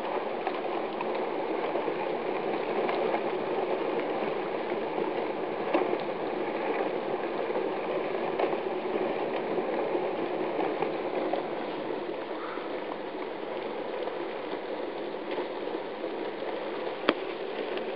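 Drifting river ice floes grinding and crackling as the river's ice cover breaks up and starts moving: a steady rush of many small cracks, with a sharper crack about six seconds in and another near the end.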